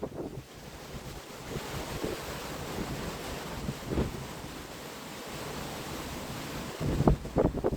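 Hurricane wind rushing over the microphone with waves surging, a steady noisy roar; heavier gusts buffet the microphone near the end.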